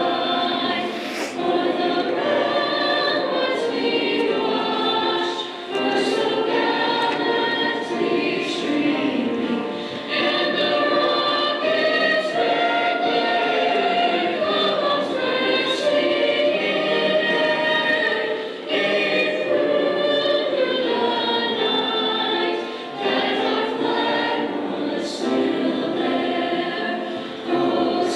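A choir singing in long sustained phrases, with brief pauses for breath between them.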